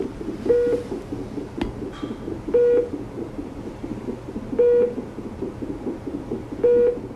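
Fetal heart monitor playing the baby's heartbeat as a fast, pulsing whoosh, with a short electronic beep repeating about every two seconds. A single click about one and a half seconds in.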